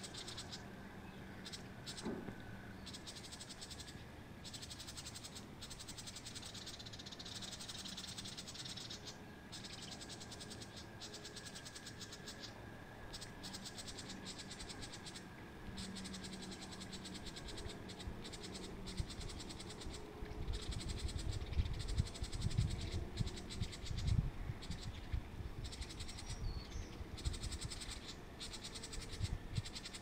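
Dry, rapidly pulsing animal chirring throughout, with a faint steady high tone under it. Low rumbling bumps come in the second half and are the loudest sound.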